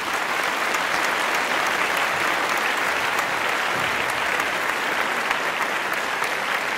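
Steady applause from a crowd: dense, continuous clapping.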